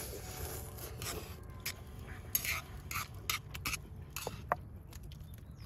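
Long metal chopsticks stirring wet ramen noodles in a black steel frying pan, scraping and clicking against the pan in a run of short irregular strokes.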